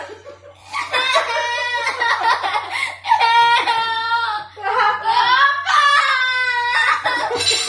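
A young child crying in several long, high-pitched wails with short breaks between them.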